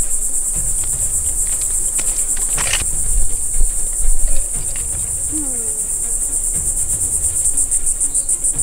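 A steady, high-pitched insect trill that pulses rapidly, over a low rumble, with a few louder knocks or rustles around the middle.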